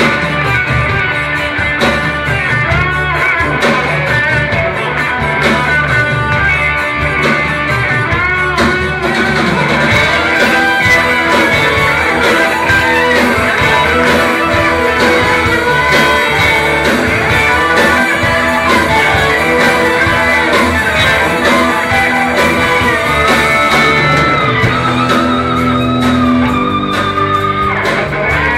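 Progressive rock band playing live through a concert PA: electric and acoustic guitars with violin over a steady beat, heard loud from within the audience.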